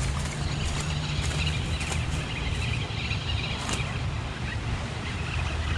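Steady outdoor background noise: a low hum under an even hiss, with a few faint light ticks about a second in and again near the middle.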